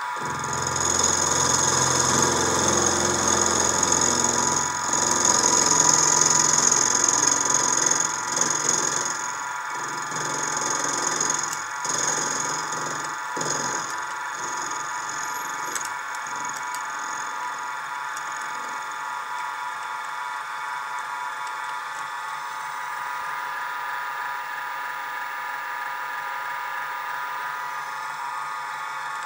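Sieg mini mill running with a steady motor whine as an end mill cuts down a small metal crank boss. The cutting is louder and rougher for about the first half, then settles to steadier, quieter running.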